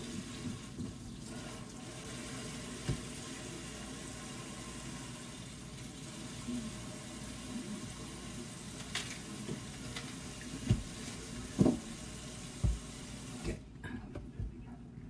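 Kitchen tap running steadily into the sink while celery is rinsed under it, with a few sharp knocks about two-thirds of the way through. The water shuts off shortly before the end.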